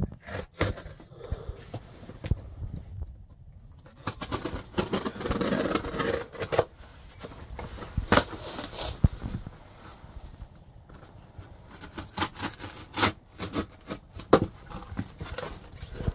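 Packing tape being peeled and torn off a cardboard box, with the cardboard flaps scraping and being pulled open, in irregular rips, scrapes and knocks.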